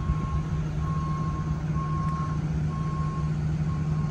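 Steady low rumble of the 1962 GMC's 305 V6 idling through its dual glasspack exhaust. Over it, a high electronic beep repeats about once a second, each beep about half a second long.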